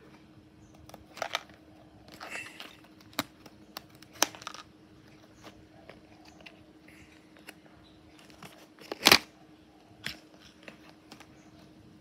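A small cardboard cube box being handled and opened by hand: scattered rustles, scrapes and light taps of the flaps, with one sharper snap about nine seconds in.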